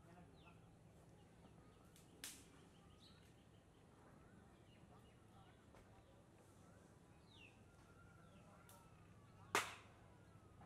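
Quiet open-air ambience with faint, scattered bird chirps over a faint low hum, broken by two sharp cracks: a small one about two seconds in and a much louder one near the end.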